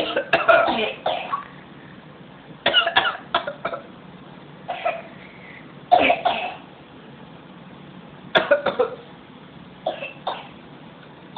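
An infant fake-coughing: about six short bouts of small, forced coughs, each a few coughs long, with pauses of a second or so between bouts.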